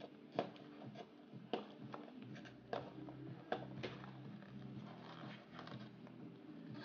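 Fingers handling a small cardboard product box and its paperboard insert: a few short taps and scrapes, over a faint steady low hum.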